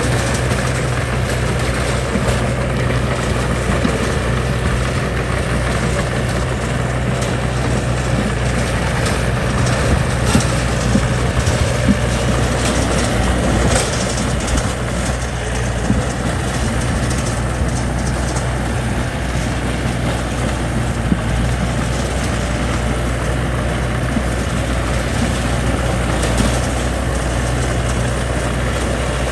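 Heavy construction machine's engine running steadily, with a few brief knocks in the middle.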